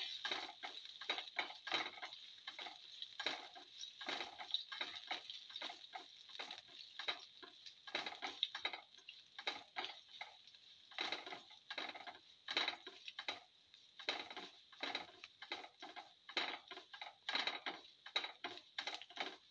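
A spatula scraping and tapping a pan while ginger is sautéed with mustard and cumin seeds, giving a fast, irregular run of small clicks and scrapes.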